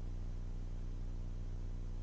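Steady low drone of a single-engine Cessna's piston engine and propeller in flight, a muffled low hum that holds even throughout.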